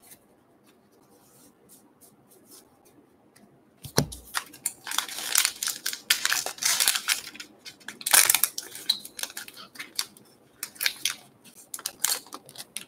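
A foil trading-card pack wrapper being torn open and crinkled as the cards are pulled out. The first few seconds are nearly quiet with faint rustles. The tearing starts suddenly about four seconds in and is loudest near eight seconds, then breaks into shorter crinkles toward the end.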